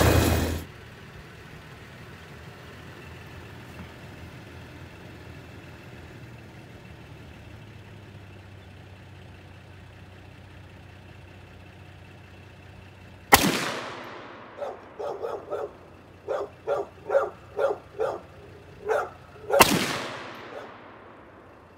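Two rifle shots about six seconds apart, each followed by a short echoing tail. Between them a dog barks about a dozen times in quick succession, and it barks once more near the end.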